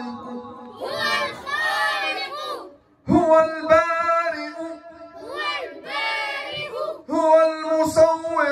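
A group of children singing together in unison, in phrases of held notes, with a short break about three seconds in.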